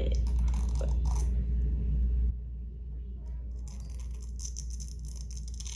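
Velcro being pulled apart: a long crackling rip that starts a little over two seconds in.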